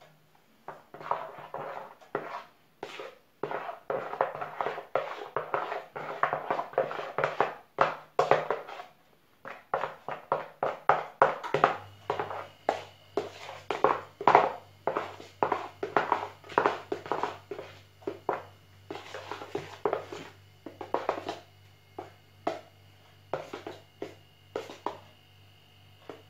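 Spoon stirring shaving-foam slime with glitter in a plastic bowl: quick wet squelching and scraping strokes, two or three a second, with a short pause about nine seconds in. A faint steady hum comes in about twelve seconds in.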